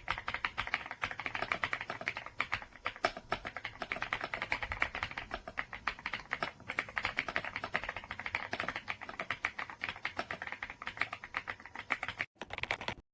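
Typing on a YUNZII C75 wireless mechanical keyboard with linear switches: a fast, continuous stream of keystrokes, breaking off briefly near the end.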